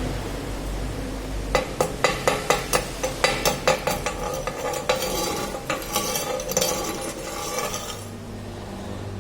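A run of light metallic taps, about four a second, turning into a denser clinking and crackling clatter that stops about eight seconds in.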